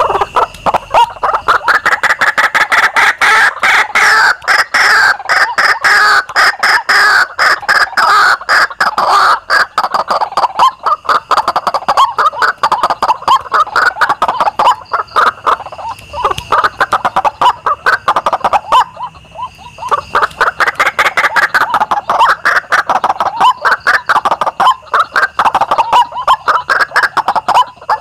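White-breasted waterhens calling: a loud, rapid, unbroken run of repeated calls used as a lure for the species, dropping away briefly about nineteen seconds in and then resuming.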